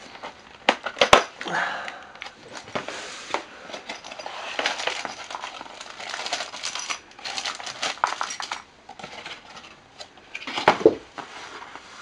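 A cardboard accessory box being opened and its contents handled: rustling cardboard and plastic bags, with clicks and clinks of small metal mounting parts and screws set down on cardboard. A few sharp clicks come about a second in and a louder knock near the end.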